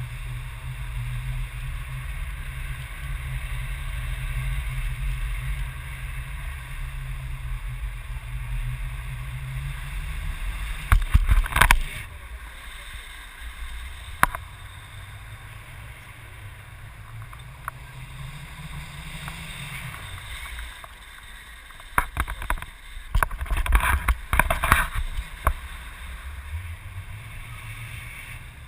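Wind rushing over the microphone in flight: a steady low rumble, with loud buffeting bursts about eleven seconds in and again around twenty-two to twenty-five seconds in.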